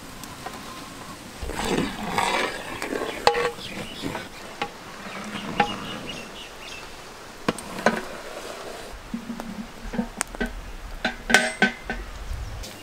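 A long-handled ladle stirring in a big pot of curry gravy cooking over a wood fire, with scattered sharp clicks and knocks against the pot. Insects buzz in the background.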